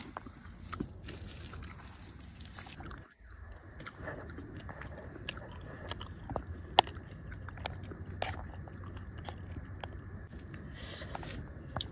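Close-up eating sounds: chewing and biting fruit, with a metal spoon clicking and scraping against a plastic tub in short sharp ticks from about three seconds in, over a steady low rumble.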